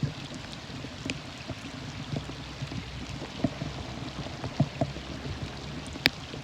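Steady rain with scattered drops ticking, and one sharp click about six seconds in.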